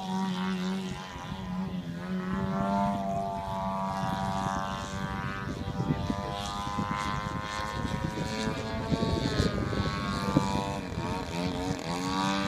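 Engine and propeller of a radio-controlled Hangar 9 Extra 300 aerobatic model plane running in flight, its pitch falling and rising several times as the throttle changes through manoeuvres.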